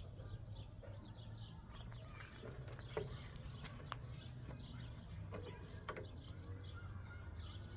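Small birds chirping over and over, faint, with a few sharp clicks scattered through and a low steady rumble underneath.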